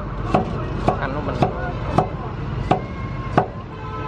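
A steel cleaver chopping vegetables on a thick round wooden chopping block: six sharp chops, one roughly every half to two-thirds of a second.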